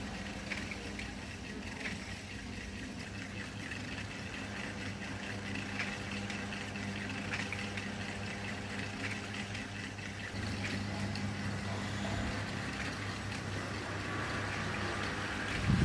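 Small 220V mini ceiling fan motor running with a steady electrical hum and light ticking, getting a little louder about ten seconds in. A short low knock right at the end.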